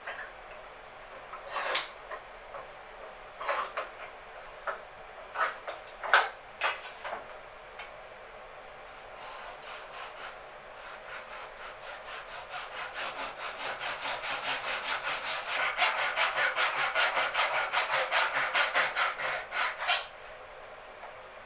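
Hand saw cutting maple for a dovetail joint: a few scattered knocks first, then saw strokes from about nine seconds in, growing quicker and louder until they stop suddenly just before the end.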